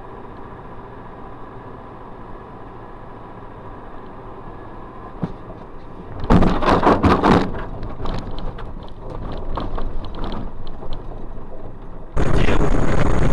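Car interior on the move: steady engine and road noise. About six seconds in, a sudden loud crash and clatter as an oncoming car closes in, rattling on for a second before dying away over several seconds. Near the end, louder steady vehicle noise cuts in abruptly.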